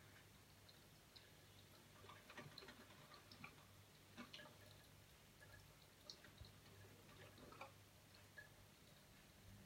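Faint, irregular small splashes and drips from a bird bathing in shallow water, over a low steady hum.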